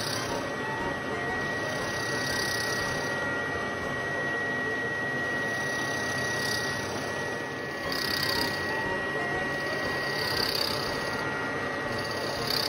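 Drill press motor running with a steady high whine while its bit bores into a wooden block, with brief brighter swells as the bit cuts.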